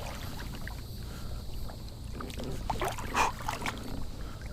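Water lapping around a kayak, with a few short, sharp splashes about three seconds in while a hooked bass is being played at the side of the boat.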